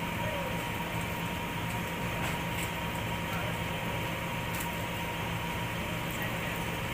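Heavy diesel engine idling steadily, with an even low drone.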